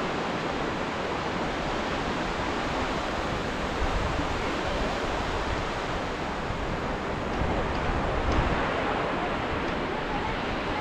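Ocean surf: a steady wash of waves, swelling a little about four seconds in and again after about eight seconds.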